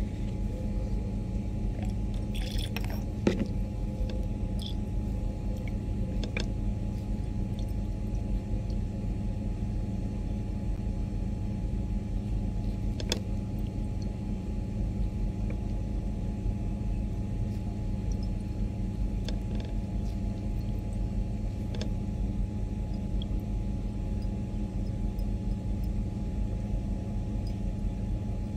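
Steady low room rumble with a faint constant hum, with a few light clicks and taps of glassware as a glass Erlenmeyer flask is swirled under a burette, the loudest cluster about three seconds in.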